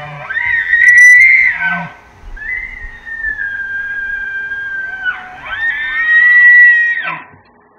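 Bull elk bugling: high whistling calls that glide up, hold steady and drop away, several in a row with a brief break about two seconds in.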